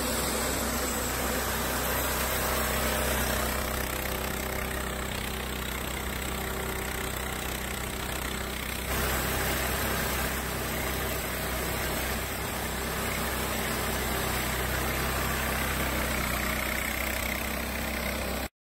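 Small rice combine harvester running while harvesting: its single-cylinder air-cooled diesel engine (Changchai 192F) gives a steady hum, under a dense mechanical rush from the machine. The sound changes slightly about halfway through and cuts off suddenly near the end.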